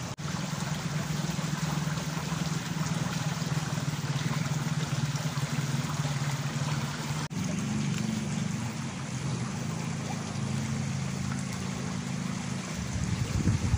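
A small motor humming steadily under a rushing noise, with a slight change in its pitch after a break about seven seconds in.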